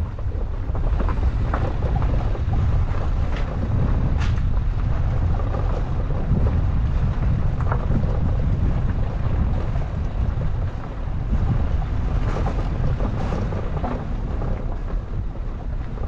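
Wind buffeting the microphone: a steady, gusting low rumble with a few faint ticks.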